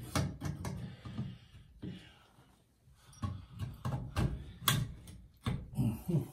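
Irregular clicks, taps and scraping of a Delta shower valve's bonnet nut and sleeve being turned by hand onto the cartridge. They come in two bunches, with a short lull two to three seconds in.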